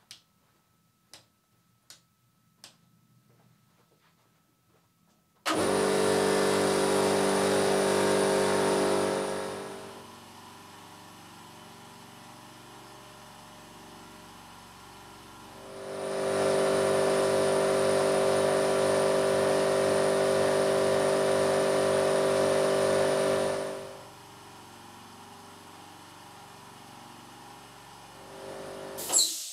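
A direct-drive piston air compressor running loud and steady, alternating with a silenced oil-free compressor running far quieter. The loud machine comes in twice, for about four seconds and then about seven seconds. A few faint clicks come before it starts and a sharp click near the end.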